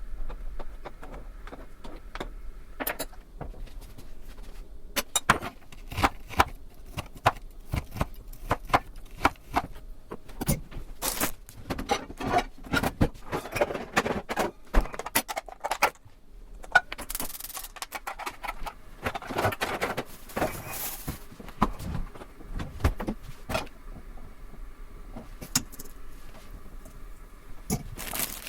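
Kitchen handling sounds: irregular clicks, taps and light clinks of utensils and ingredients being worked by hand, with a few short rustling or scraping stretches.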